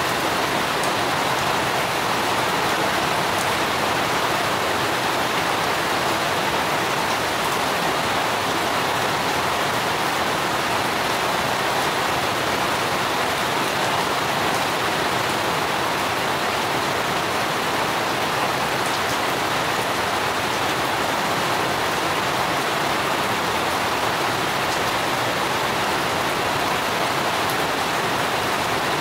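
Steady rain falling: an even hiss with a few faint, scattered drop ticks.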